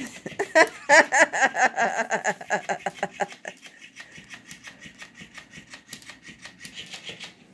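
Robotic flopping trout toy clicking and clattering on a wooden floor, its noisy joints ticking in a rapid, even rhythm of several clicks a second. A woman laughs over it for the first few seconds.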